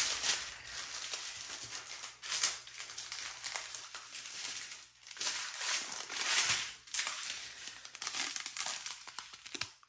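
Small plastic bags of diamond-painting drills crinkling as they are handled and sorted, in irregular bursts.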